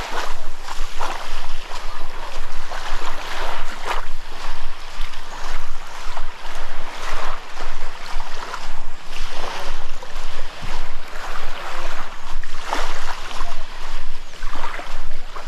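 Waves washing on a sandy beach, with wind on the microphone and a steady rhythm of footsteps in the sand at walking pace.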